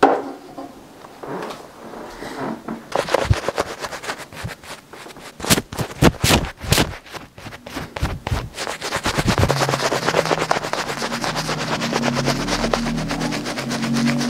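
Close-miked shaving brush working lather onto a stubbled face: fast, dense, bristly scratching strokes, with a few harder strokes near the middle before it settles into a steady rhythm. A sharp knock sounds at the very start.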